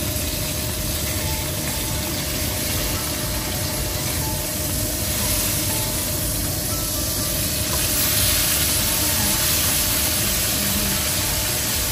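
Fish fillets frying in hot oil in a wok, a steady sizzling hiss that grows a little louder about eight seconds in.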